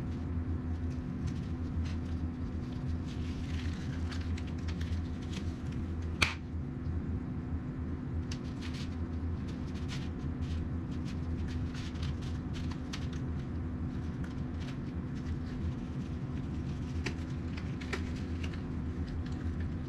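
Sterile surgical gloves being handled and pulled on over their paper wrapper: a run of small crackles and snaps of paper and glove, with one sharper snap about six seconds in. A steady low room hum lies underneath.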